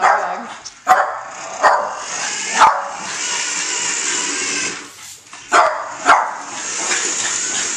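Small dog barking sharply at a remote-control toy monster truck, about six barks, with the steady whir of the truck's electric motor between barks.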